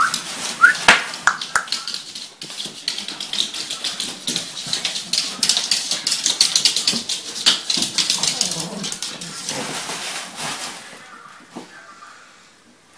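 Pugs scuffling over a hat and a sheet of bubble wrap: a dense crackle of plastic crinkling, mixed with short dog whines and snorts. It dies down about eleven seconds in.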